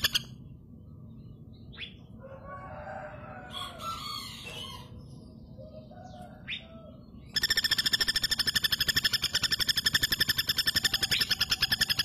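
Female common flameback woodpecker (pelatuk bawang) giving its loud, fast, even rattling call, which breaks off just after the start and comes back abruptly about seven seconds in. In the quieter stretch between, a few short sharp calls and fainter bird calls.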